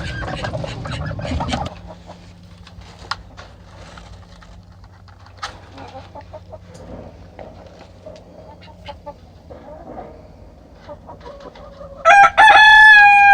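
Chickens clucking and calling softly, with a louder flurry of bird noise in the first second or so. Near the end a rooster crows loudly, one long call held at a steady pitch.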